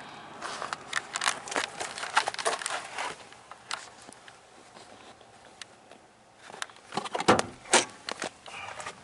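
Scattered clicks and rustling handling noise, then two sharp knocks about seven and eight seconds in.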